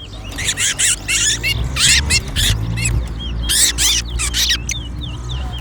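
A small caged songbird in a singing contest delivers one fast, warbling song of many short high notes lasting about four seconds, with short repeated chirps just before and after it. This is the kind of full song the judge counts. A steady low hum runs underneath.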